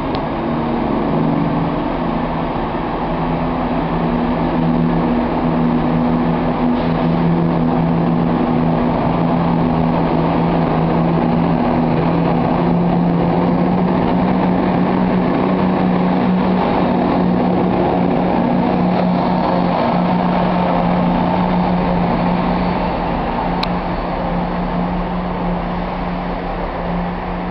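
Diesel multiple unit moving slowly past close by, its underfloor diesel engines giving a steady low drone over a rumble; the sound eases off in the last few seconds.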